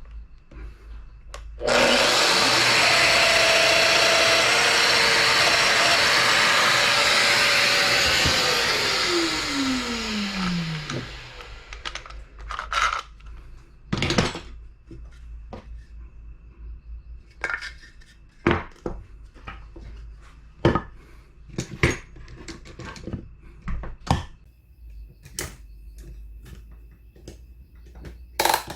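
An electric power tool's motor is switched on and runs at full speed for about six seconds, then is switched off and winds down with a falling whine. Scattered knocks and clicks follow as the tool is handled.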